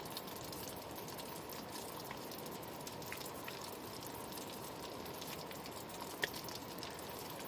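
Hot oil sizzling steadily as breaded food deep-fries, with a few sharp pops and crackles.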